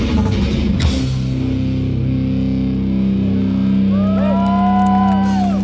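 Live hardcore band with distorted electric guitars, bass and drums. The drums drop out about a second in, leaving a low distorted chord ringing, and near the end guitar notes slide up and back down over it.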